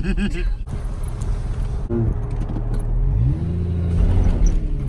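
A 1991 Jeep's engine running as it drives on into mud, revving up about three seconds in and holding the higher pitch for a second or so.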